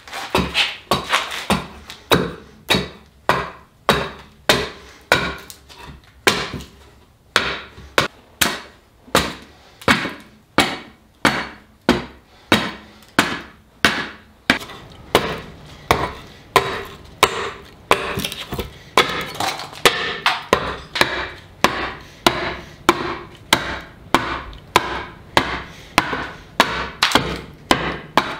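Broad hatchet chopping the edge of a wooden barrel head on a chopping block, trimming it round. A steady series of sharp wooden chops, about one and a half a second, each splitting a chip off the rim.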